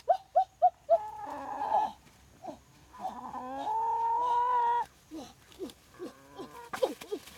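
Chickens calling: a quick run of short clucks, then a longer call, then a long drawn-out call lasting nearly two seconds from about three seconds in, followed by more short clucks near the end.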